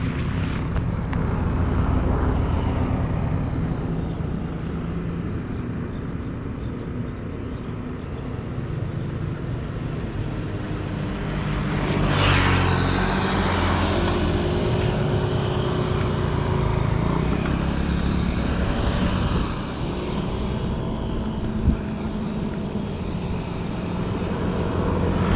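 Steady road noise of bicycle tyres rolling on pavement, with motor traffic running alongside; a vehicle passes close about twelve seconds in, and there is one sharp click about twenty-two seconds in.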